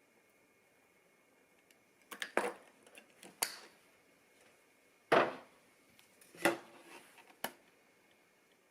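Kitchenware being handled: about five sharp knocks and clinks, some ringing briefly, in a quiet kitchen.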